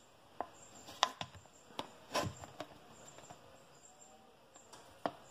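Faint crackles and about half a dozen sharp, scattered clicks from a thin plastic water bottle as it is held and pierced with a heated nail, over a faint hiss.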